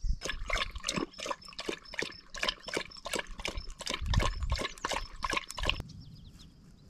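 Dog lapping water from a plastic bowl: quick, even wet laps, about four or five a second, that stop about a second before the end.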